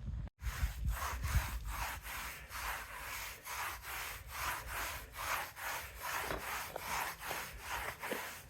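Stiff brush scrubbing degreaser into greasy concrete in quick back-and-forth strokes, about two to three a second.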